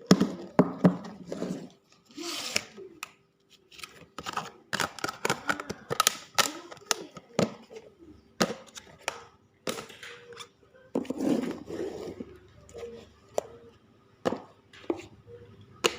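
Kitchen food-preparation sounds: a long irregular run of sharp clicks and knocks, with short stretches of rustling, such as cutting and packing food.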